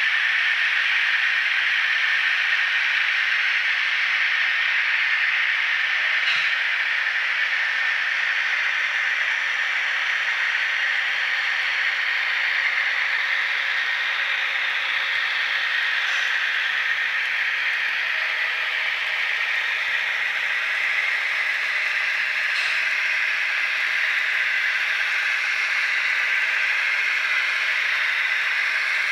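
Recorded diesel railcar engine sound played by the HO-scale KiHa 82 model's ESU LokSound V3.5 sound decoders through their small onboard speakers: a steady, hissy running noise with almost no bass. A few faint clicks come through about a quarter, halfway and three-quarters of the way in.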